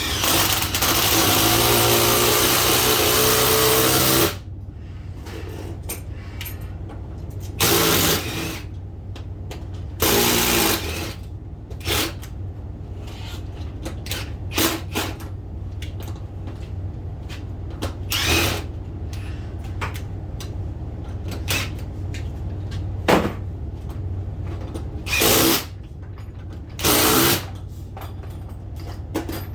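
Power drill running for about four seconds at the start, then used in a series of short bursts of under a second each, over a steady low hum.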